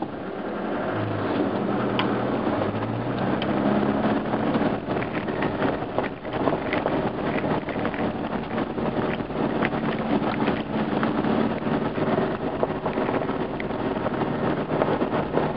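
Off-road 4x4 driving on a gravel track: the engine runs steadily, its note rising about a second in as it picks up speed, over the constant crunch of tyres on gravel with many small knocks and ticks.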